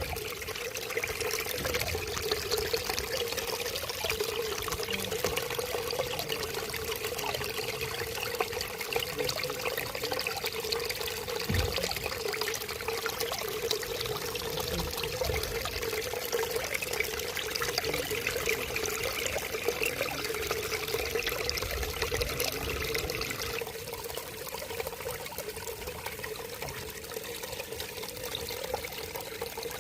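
Water running and splashing steadily, a continuous pouring, trickling rush that gets a little softer about three-quarters of the way through.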